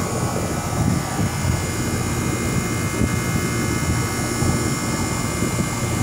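Outdoor air-conditioner condenser unit running close to the microphone: a steady rush of fan air with a constant hum.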